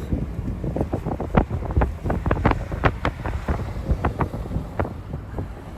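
Wind buffeting the microphone: a low rumble broken by frequent short crackles and pops.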